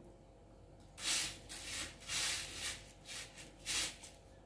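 A hand raking and sweeping through uncooked rice grains in a woven bamboo winnowing tray: a series of short rustling swishes of grain sliding over grain and bamboo, starting about a second in. The grains are being spread out by hand to pick out leftover unhulled grains.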